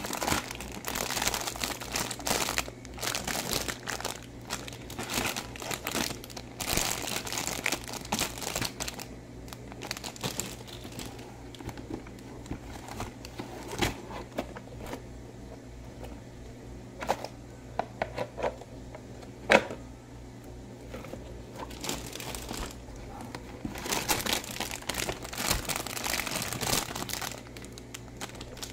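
Clear cellophane bags of plastic toy pieces crinkling in bursts as they are handled and pulled out of a cardboard box, with a few sharp clicks of hard plastic and cardboard, loudest about two-thirds of the way in.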